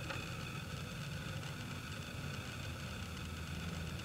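Steady low rumbling hum with a light hiss over it, unchanging throughout.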